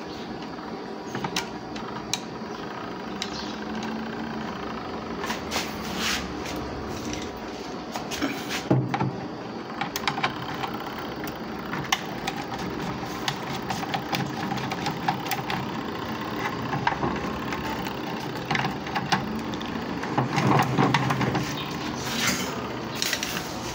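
Screwdriver and hand work on a washing machine's plastic control panel while the timer is unscrewed: scattered clicks, scrapes and knocks of metal on plastic, busiest near the end, over a steady low hum.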